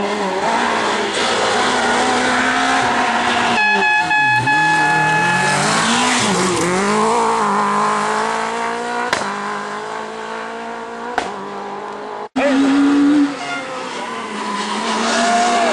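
Rally cars racing past on a tarmac stage, their engines revving up and dropping back again and again through gear changes. There are a couple of sharp cracks, and the sound jumps abruptly about three quarters of the way through as another car takes over.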